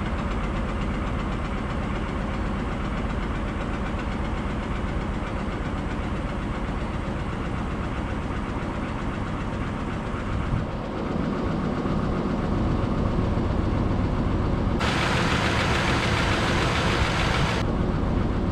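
Chevrolet Trailblazer engine idling, heard from inside the cab, just after firing up on a makeshift bucket fuel system. It has sat for about eight years and is on old recycled gasoline, and it runs a little rough. About eleven seconds in it gets louder and heavier, and a loud hiss starts about fifteen seconds in and cuts off suddenly about three seconds later.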